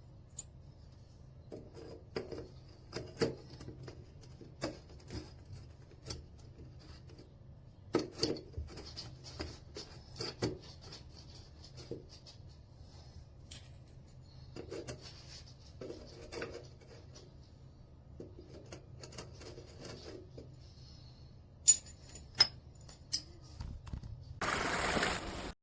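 Scattered clicks, taps and rubbing of objects being handled, over a faint steady low hum. A brief burst of noise comes near the end.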